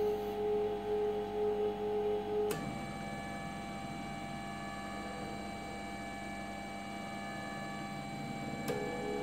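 Stepper motors of a PLC-driven conveyor and pick-and-place gantry whining at steady pitches. One tone cuts off with a click about two and a half seconds in and gives way to a set of higher steady tones. Another click near the end brings a lower tone back as the motors change speed.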